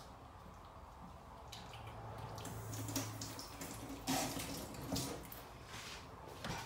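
Water running from a kitchen tap into a sink, with a few light knocks of kitchenware.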